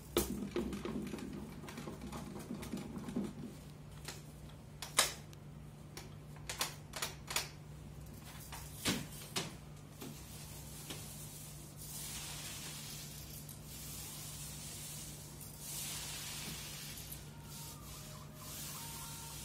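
Short-nap paint roller on an extension pole, loaded with water-thinned emulsion paint: a rough rustle as it is loaded at the start, a few sharp clicks, then a steady hissing swish as it is rolled over the wall from about twelve seconds in.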